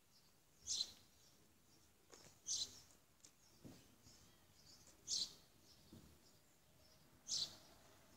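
Short, high-pitched chirps, four of them about two to two and a half seconds apart, over faint low background noise.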